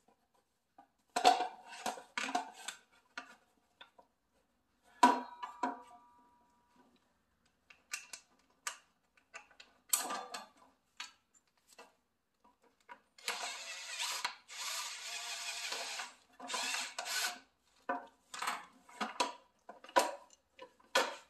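Clicks, knocks and plastic clatter as the clear plastic lower blade guard and its return spring are worked back onto a Makita LS1013 sliding compound miter saw's blade housing. One knock has a short metallic ring, and about midway a rough scraping noise runs for about three seconds.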